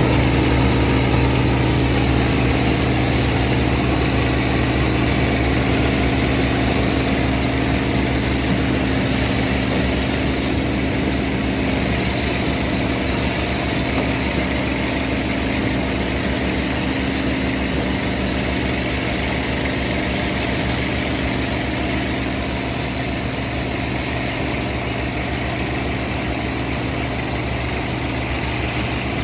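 Heavy farm machine's diesel engine running steadily at a constant speed.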